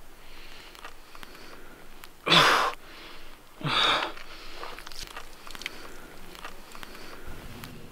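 A wounded man gasping hard twice in pain, two loud ragged breaths about a second apart, with small clicks and rustling around them.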